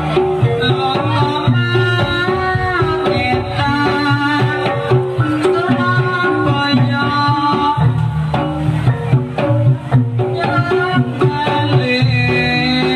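Javanese jaranan (kuda kepang) accompaniment music played live: hand drums beating a dense rhythm under several melodic lines that hold and bend in pitch.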